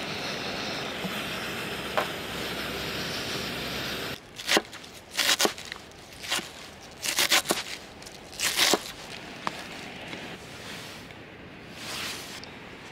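A steady rushing noise that cuts off about four seconds in, followed by a series of sharp clicks, knocks and scrapes, like objects being handled and set down.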